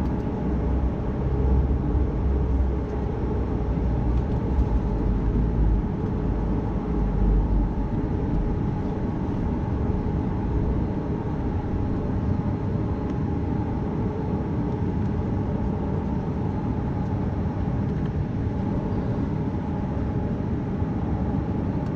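Cabin noise of a Boeing 737 MAX 8 with its CFM LEAP-1B engines at idle: a steady hum with a low rumble from rolling on the ground, which eases about seven seconds in as the jet stops, lined up on the runway before the take-off roll.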